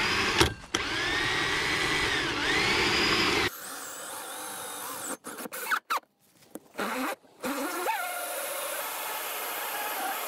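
Cordless drill driving a 70 mm hole saw through a motorhome's side panel: the motor whine dips and recovers as the saw bites. About three and a half seconds in the sound turns thinner, with a few brief cut-outs around the middle.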